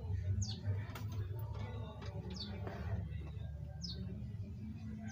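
A bird giving short, high chirps that slide downward in pitch, repeated every second or two, over a steady low hum.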